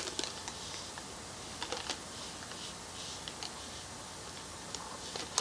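Scattered light clicks and taps from makeup items being handled, over a faint steady hiss.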